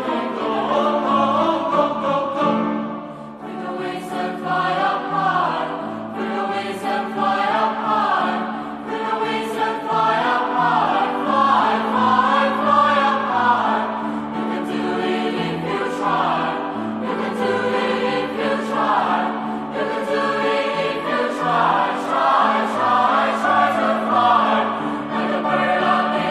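School chorus singing in harmony, the voices moving together through the phrases, with a brief drop in loudness about three seconds in.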